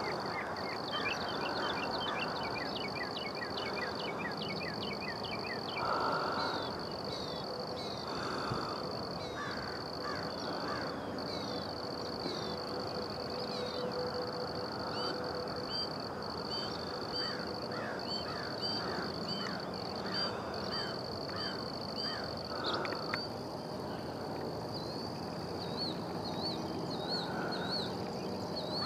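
Outdoor dawn ambience: a steady, high-pitched insect drone with birds chirping over it in repeated short notes. A few short, harsh calls stand out, about six seconds in and again near the two-thirds mark.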